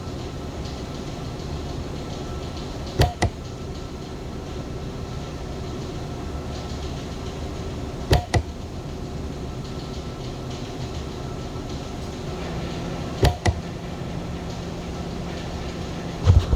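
Steady hum of boiler-room machinery, with a sharp double knock about every five seconds.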